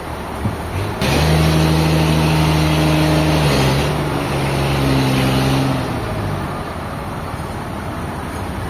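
A heavy engine running hard, a steady drone that comes in suddenly about a second in, drops slightly in pitch partway through, and dies away after about six seconds.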